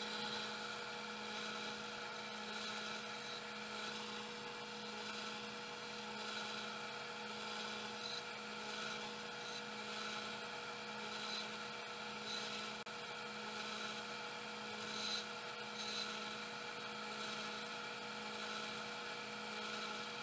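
Benchtop belt-and-disc sander running with a steady motor hum while a small piece is sanded against the disc.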